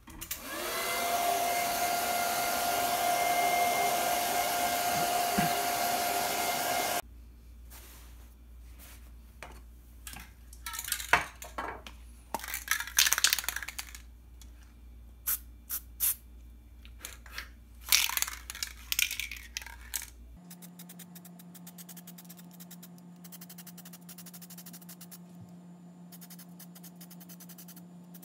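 A hair dryer-type blower running steadily for about six seconds, its motor spinning up as it starts, then stopping suddenly. After that come scattered knocks and rustles of handling over a low hum.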